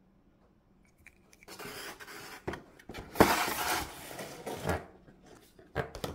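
A cardboard toy box being handled and moved about: rustling, scraping noise in two stretches, the louder one a little past the middle, with small clicks and a couple of sharp knocks near the end.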